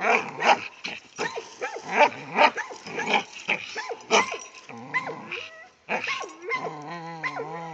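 Blue nose pit bull growling and giving short, sharp barks in irregular bursts while pulling hard in a tug-of-war, ending in a long, wavering growl.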